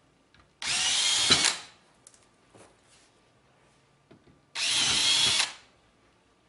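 A cordless drill makes two short bursts of about a second each, one about half a second in and one about four and a half seconds in. It is drilling out the radiator's attach-point holes ahead of tapping them. Faint clicks of handling come between the bursts.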